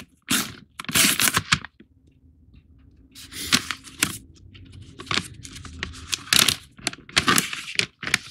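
Hands tearing the top strip off a foil-lined bag of whole-bean coffee, then pulling the bag open. It comes as a series of short, sharp rips and rustles, with a brief lull about two seconds in.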